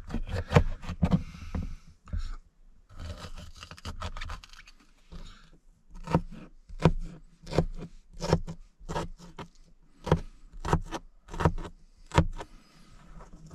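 Knife chopping a red bell pepper on a plastic cooler lid: a run of sharp chops against the board, about three a second in the second half, with a stretch of softer scraping and rustling a couple of seconds in.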